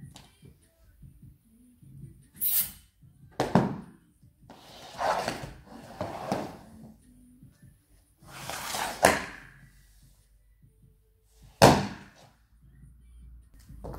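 Thuds and slides of a pole dancer's body, knee pads and platform heels on the floor during a floor combo: a few sharp knocks, the loudest near the end, and longer swishing slides in between.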